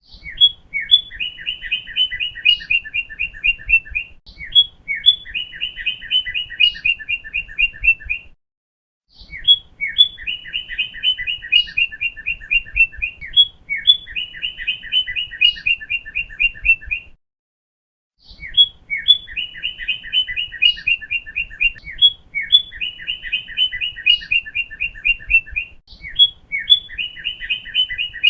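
Northern cardinal singing: repeated phrases, each a few slurred whistles followed by a fast run of about ten clear notes a second, each phrase lasting about four seconds. The song cuts to dead silence twice for about a second.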